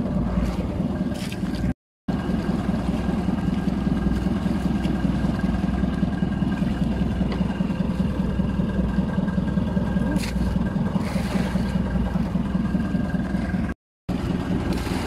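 Outrigger boat's engine running steadily at low speed, a constant low hum, with the sound dropping out briefly twice.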